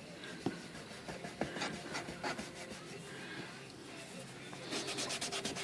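Cloth rag rubbing oil into the painted body of a typewriter: a few scattered strokes, then fast, quick back-and-forth rubbing starting near the end.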